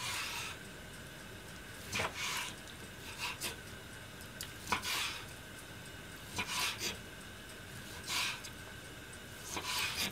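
Kitchen knife slicing a raw salmon fillet into sashimi pieces on a wooden cutting board: a short scraping cut every one and a half to two seconds, seven in all.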